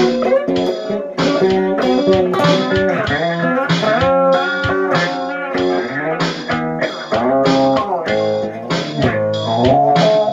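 Instrumental jam music: a plucked, guitar-like melody and chords over a steady, quick beat of about three strokes a second.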